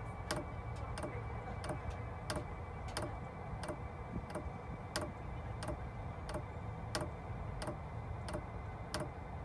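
Webasto Airtop 2000's electric fuel dosing pump clicking steadily, about three clicks a second, as it pulses fuel into the line while the system primes.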